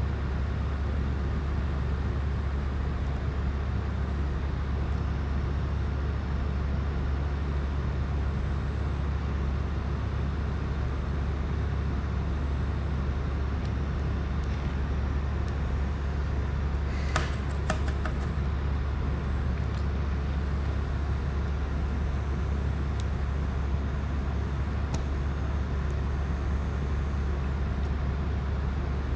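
Steady low hum with an even hiss over it. A short cluster of small clicks comes a little past halfway.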